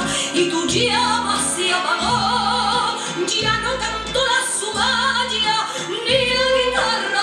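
A song playing: a singing voice on long, wavering held notes over instrumental accompaniment, with a bass note that changes roughly every second.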